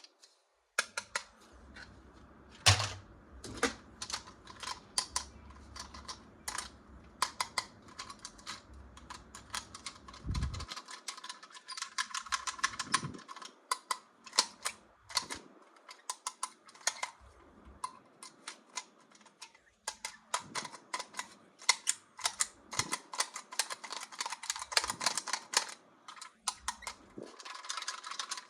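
Dense, irregular clicking and crackling of plastic toys and packaging being handled and unboxed.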